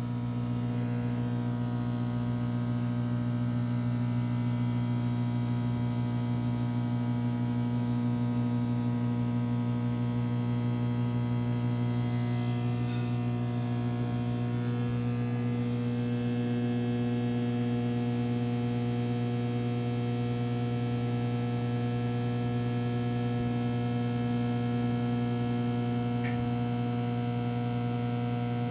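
Emerson microwave oven running: a steady, loud electrical hum.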